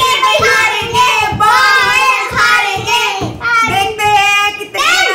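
Several children and a woman chanting together in drawn-out, sing-song voices.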